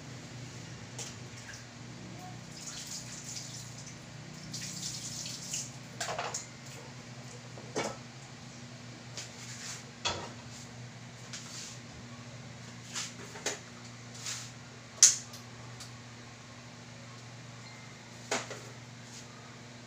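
Scattered clicks, taps and knocks of kitchen handling over a steady low hum, the sharpest click about three-quarters of the way through.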